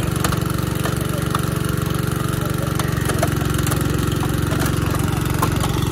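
Small gasoline engine of a portable hydraulic power unit running steadily at a constant speed, driving the hydraulic rescue tools, with a few faint clicks over it.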